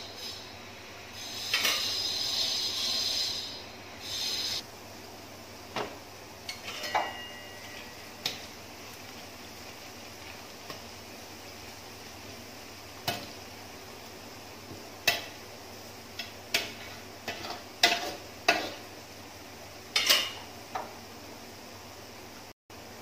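Metal spatula stirring shredded crab sticks frying in oil in a steel wok: a steady low sizzle with sharp, irregular clinks and scrapes of the spatula against the wok. A louder rush of noise lasts a few seconds near the start.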